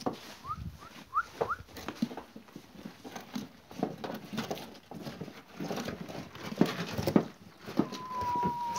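Cigaja (Tsigai) sheep eating from a feeder: irregular crunching, knocks and rustling as they chew and jostle. A few short rising chirps come in the first second and a half, and a long steady whistled note near the end.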